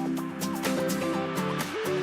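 Background music with a steady beat and a stepping synth melody.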